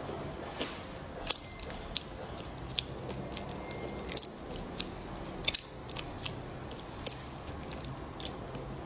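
Close-up chewing of hard dark chocolate: irregular sharp crunches and cracks as the shell breaks between the teeth, the loudest a little over a second in and about five and a half seconds in.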